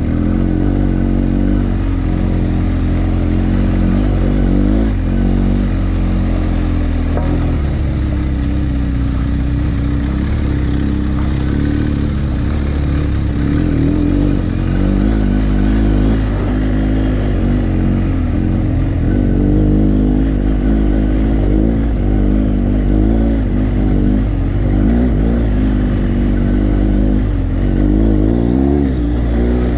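BMW GS adventure motorcycle's flat-twin (boxer) engine running at low to moderate revs on a dirt track, heard from on the bike, its pitch rising and falling as the throttle is opened and closed.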